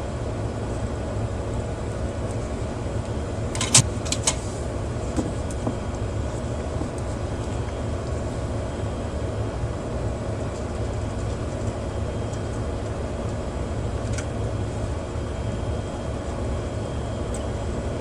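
Steady low rumble with a faint hum, with a few sharp clicks about four seconds in and one more near the end.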